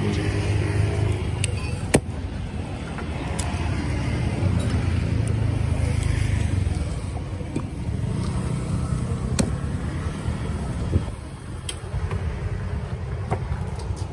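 Steady low rumble of a nearby motor vehicle engine running, with street traffic noise, broken by a few sharp knocks, the loudest about two seconds in.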